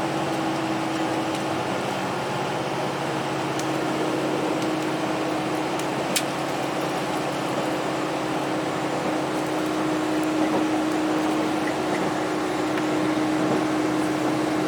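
A JR Hokkaido KiHa 261 series diesel train's engine and running noise, heard from inside the car, as the train pulls up the grade toward the Kitami pass. The engine drones steadily with one held tone and grows slightly louder near the end.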